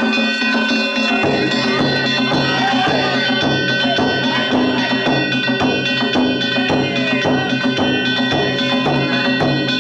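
Danjiri festival music: drum and metal hand gongs beaten in a quick, even rhythm over steady ringing tones, with a lower tone joining about a second in.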